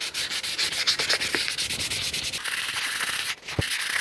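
600-grit wet-or-dry sandpaper rubbed by hand over the seal contact surface of a VW air-cooled engine flywheel, with a little lube, in rapid back-and-forth scrubbing strokes. The sanding polishes the surface smooth for the new flywheel seal. There is a short break and a low knock about three and a half seconds in.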